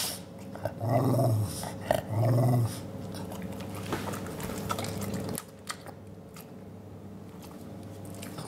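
Pug making two short, low growly vocalizations, each about half a second long, asking for a treat.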